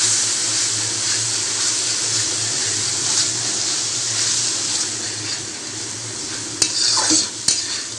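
Onion, garlic and chilli paste sizzling in hot mustard oil in a metal kadai while a metal spatula stirs it. The sizzle eases a little after about five seconds, and near the end the spatula clinks and scrapes against the pan a few times.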